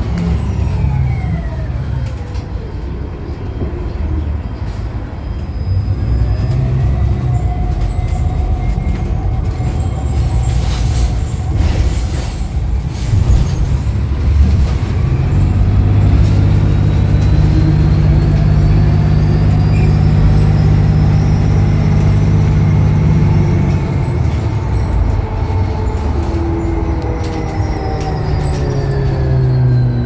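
Cabin sound of a 2016 New Flyer XDE60 articulated diesel-electric hybrid bus with BAE hybrid drive under way. The electric drive's whine falls at the start, rises in pitch and levels off over the next twenty seconds or so as the bus accelerates, then falls again near the end as it slows, with the diesel engine droning steadily underneath.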